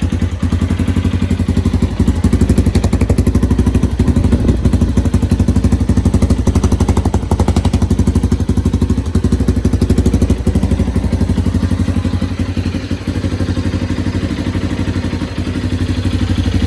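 Yamaha TT-R230 single-cylinder four-stroke dirt-bike engine idling steadily through its stock exhaust, with an even, rapid low pulse.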